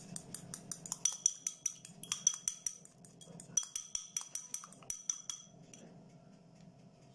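Metal fork beating egg yolk with oil in a small glass bowl: a quick run of light clinks against the glass, several a second, each leaving a short glassy ring. The beating stops about five and a half seconds in.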